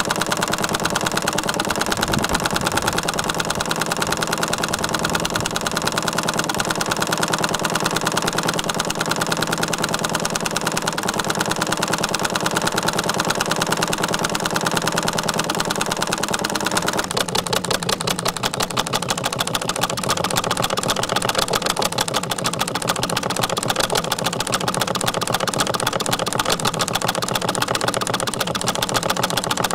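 Model Atkinson differential gas engine, a small spark-ignition four-cycle engine that gets all four strokes in a single crank revolution, running steadily at speed with a fast, even beat. Its sound shifts a little over halfway through.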